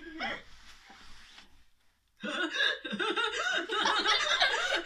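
Several children laughing loudly together, breaking out about two seconds in after a short, quieter laugh and a brief pause.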